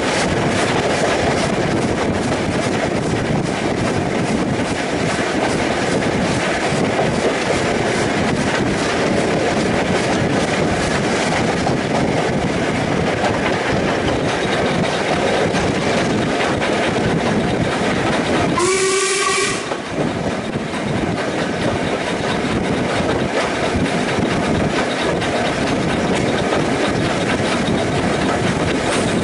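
Steam-hauled train running on jointed track: a steady rumble with the clickety-clack of wheels over rail joints, and one short steam whistle blast about two-thirds of the way through.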